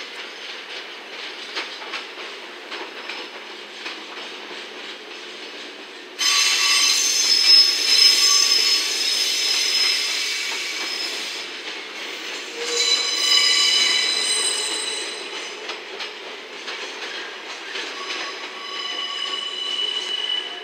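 Steel wheels of JR Freight Koki container flat wagons moving slowly through the yard, first clicking over rail joints and points. About six seconds in, a loud high-pitched squeal of several tones begins, the wheels grinding against the rails on a tight yard curve; it fades and returns twice more.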